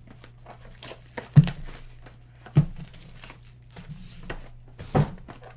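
Trading-card packaging crinkling and tearing as it is opened and handled, with a few sharp knocks, the loudest about a second and a half in, over a steady low hum.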